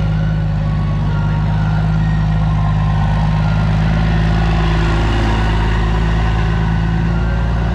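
Cummins turbo-diesel of the Firepunk Anteater drag truck idling steadily at close range.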